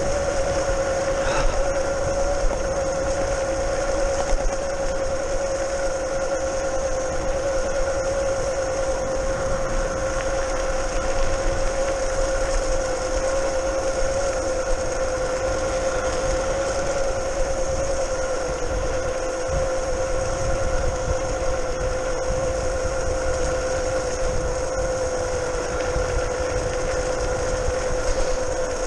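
Modified electric scooter's brushless outrunner motor whining steadily while cruising. The pitch sinks slightly over the ride, over a low rumble of wind and tyres on a rough path.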